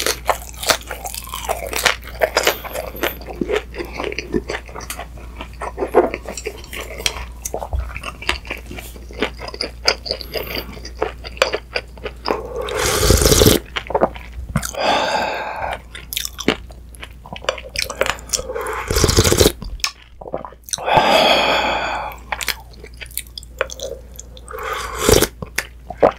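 Chewing and biting into a pan-fried dumpling, many short crunchy clicks, then several loud slurps of spicy ramyun broth from a spoon about halfway through.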